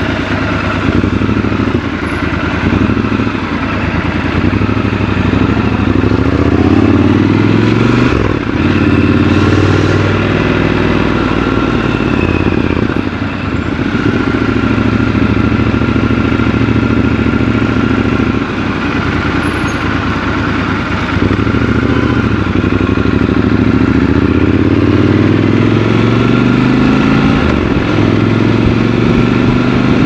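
Triumph Scrambler 1200 XC's 1200 cc parallel-twin engine running while riding through town. The revs rise in several long pulls, about five seconds in and again in the last third, and drop briefly in between.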